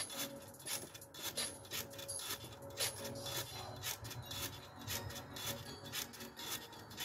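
Rebounder (mini trampoline) springs and mat creaking and rasping in quick, uneven repeats, several times a second, as someone bounces on it.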